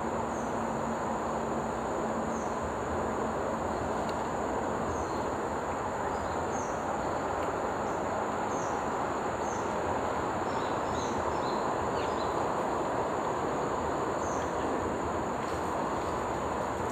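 Steady outdoor background noise with a continuous high-pitched insect drone and scattered short bird chirps.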